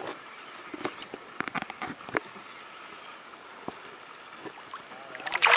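Faint water noise with a few light clicks and knocks of tackle in a boat, then a loud splashing rush near the end as a hooked pacu thrashes at the surface.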